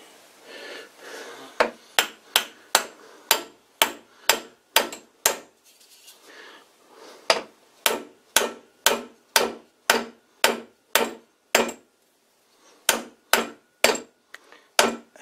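Steady runs of light hammer taps driving the tight-fitting handle collar of an old lathe tailstock onto its screw shaft, about two to three taps a second with two short pauses. The taps are meant to bring the collar's pin hole into line with the hole in the shaft.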